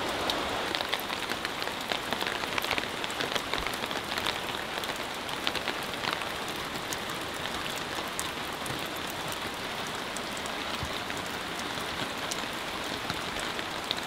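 Steady rain falling, with many sharp drop hits scattered through it.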